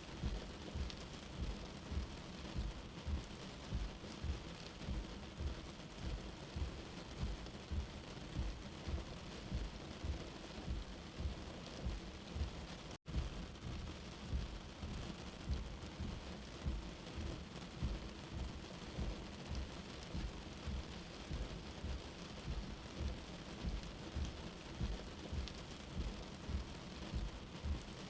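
Rain falling steadily: an even hiss with a low thud repeating roughly every half second. The sound cuts out for an instant about halfway through.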